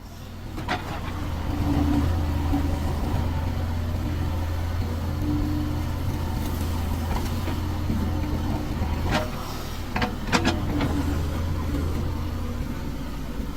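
Mahindra 275 DI tractor's three-cylinder diesel engine running steadily, with a few sharp knocks about nine and ten seconds in.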